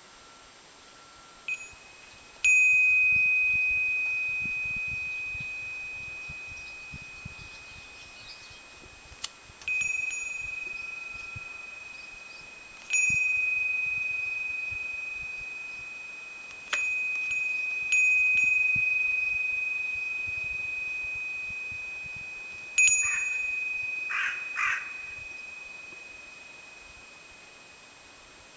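Japanese wind bell (furin) rung by its clapper in the breeze: a single clear high ring struck about seven times at irregular intervals, each strike fading slowly over several seconds. A couple of short, softer sounds come in near the end.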